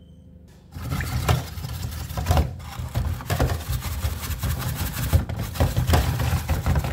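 Steel wool scrubbing inside a washing machine's detergent dispenser tray: rapid, closely spaced scraping strokes that start about a second in.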